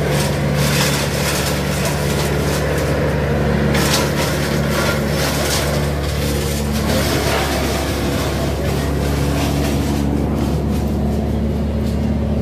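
Steady engine and road noise inside a moving police car, a constant low hum with occasional brief rattles.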